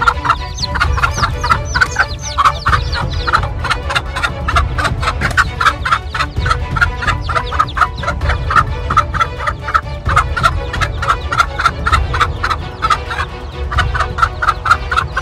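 Mother hen clucking rapidly and without pause, about four clucks a second, in alarm at a snake near her chicks. Chicks peep in high, falling cheeps over the first few seconds.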